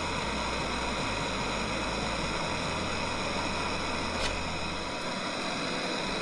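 MAP gas torch burning with a steady hiss, heating a steel repair panel so it can be stretched. One faint click comes about four seconds in.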